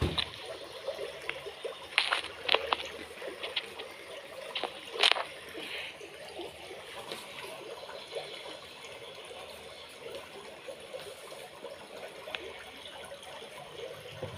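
Reef aquarium water trickling and splashing steadily, with a few sharp clicks about two and five seconds in.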